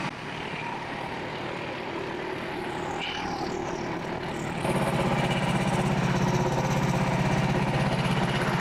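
Frontier OS27 portable sawmill's engine running steadily, growing clearly louder about halfway through.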